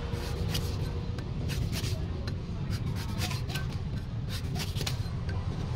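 Cleaver blade slicing and shaving the husk off a golden coconut: a series of short, crisp cutting scrapes, over a steady low rumble.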